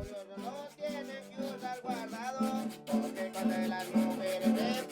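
Background music led by plucked string instruments, guitar-like, playing a melody.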